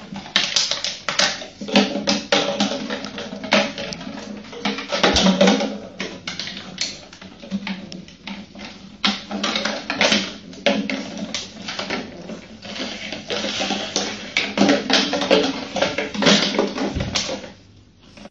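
A plastic bottle clattering and rattling across a tiled floor as a puppy pushes and chases it, in a quick, irregular run of clicks and knocks.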